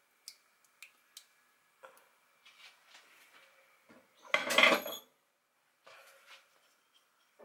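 Kitchen crockery handled on a counter: a few light clinks, then one loud clatter of dishes about four seconds in.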